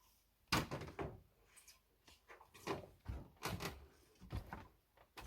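A series of sharp knocks and clatters, irregularly spaced, the loudest about half a second in.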